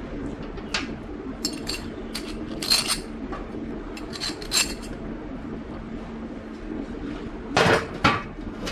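Metal parts and tools clinking and knocking together, a scatter of light clinks with two louder ones near the end, over a steady low hum.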